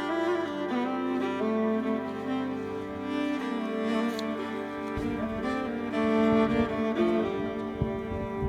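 Background music of slow, held bowed-string notes that change pitch every second or so.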